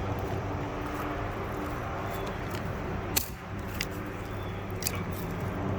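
Steady low hum of a running engine, with a few sharp clicks and taps between about three and five seconds in.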